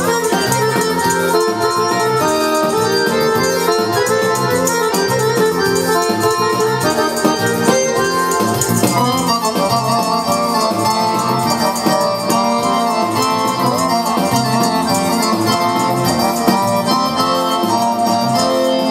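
Loud dance music with held melody notes over a steady beat, and a shaken tambourine jingling along in rhythm.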